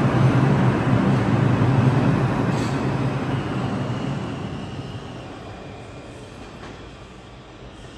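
R142 subway train pulling out and running away along the track, its rumble and low hum fading steadily as it recedes.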